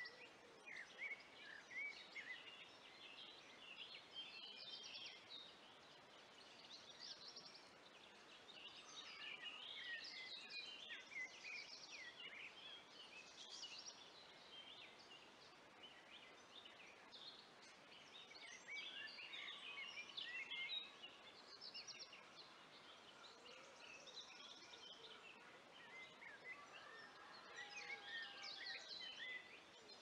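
Faint chorus of songbirds singing: several overlapping songs of quick chirps and trills, coming and going in busier bursts over a low background hiss.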